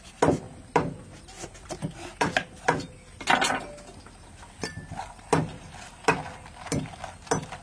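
A knife cuts into a peeled green papaya and the fruit is split into halves. This gives a string of about a dozen sharp, crisp cracks and clicks, with a denser crackle about three seconds in. The seeds are then scraped out by hand.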